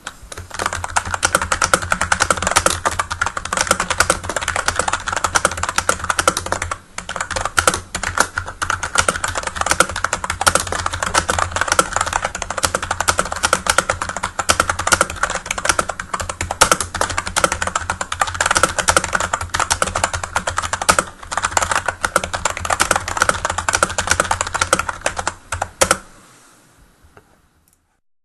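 Continuous fast typing on an Emarth EM-601, a budget rubber-dome-over-membrane keyboard whose stiff, tactile keys must be pressed all the way down to register. The key clicks are dense and rapid, with two brief pauses, and the typing stops a couple of seconds before the end.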